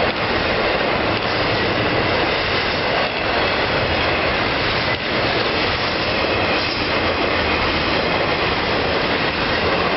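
Freight train's intermodal cars rolling past at speed: a steady rush of steel wheels on rail, with faint high steady tones from the wheels over it.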